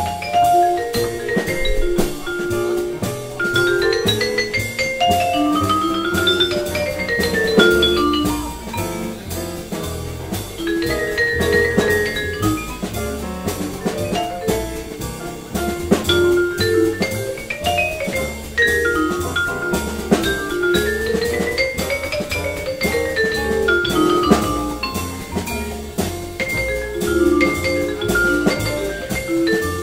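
Jazz quartet playing a blues: a vibraphone solo of fast rising and falling runs, over double bass, piano and drums keeping a steady cymbal beat.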